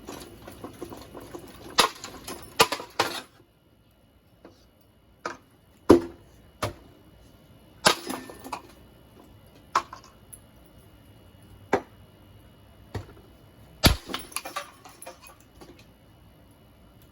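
Irregular knocks and clicks of hard objects being handled, about a dozen sharp ones spread unevenly, with a loud knock about six seconds in and another near fourteen seconds.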